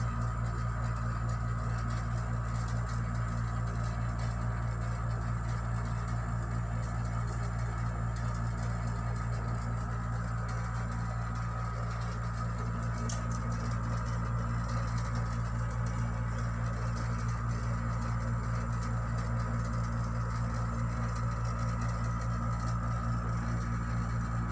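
Steady low machine hum with a few fixed tones above it, with one faint click a little past the middle.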